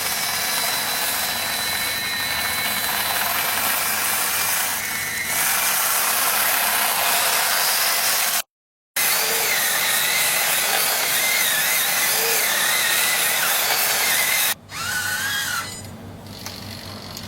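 Small electric gear motors of an RC-converted 1/35-scale Tamiya Leopard 2A7 model tank running, with a high, gritty gear whine that wavers up and down in pitch as the speed changes. The sound drops out briefly about halfway through and turns fainter near the end.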